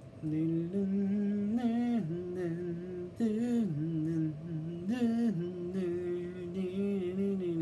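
A man humming a tune without words, in long held notes that step up and down in pitch.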